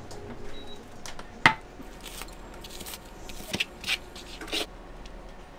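Kitchen knife dicing red onion on a cutting board: a few sharp cuts and scrapes, the loudest about a second and a half in, with a quicker cluster of strokes in the middle.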